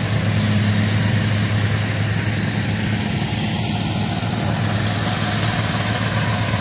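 Engine running steadily at a constant speed, an even low hum with no change in pace.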